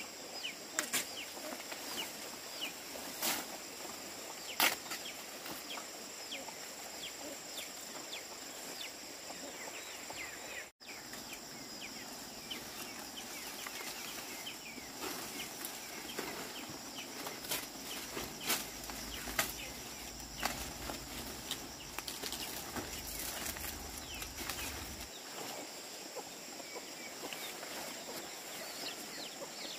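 Farmyard poultry: a hen clucking among young birds that give many short, high, falling peeps, with scattered sharp clicks and a steady high-pitched whine throughout.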